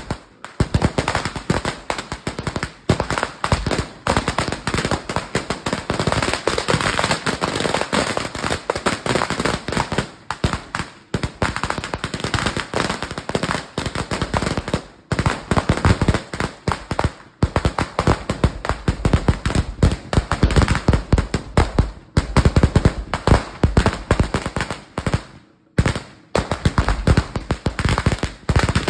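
A long 5,000-round firecracker string going off in a rapid, continuous string of bangs, broken by a few brief pauses.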